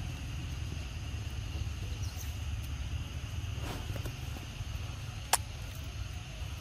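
Outdoor ambience: a steady low rumble under a steady high insect drone, with one sharp click about five seconds in.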